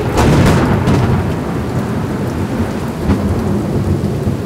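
Thunder from a very close lightning strike: a sudden crash breaks out right at the start and rolls on as a loud, rumbling boom with sharp crackles, about a second and again about three seconds in. Rain is heard falling throughout. Described as "the loudest I've ever heard".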